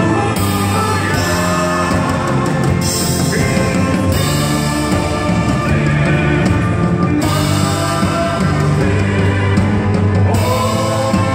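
Live band with drum kit and electric guitar playing loudly, with a singer holding long notes; the chord moves up several times.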